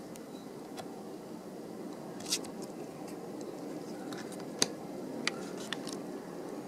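A few sharp clicks and light knocks of plastic and metal laptop screen parts being handled and pried apart, over a steady low hum.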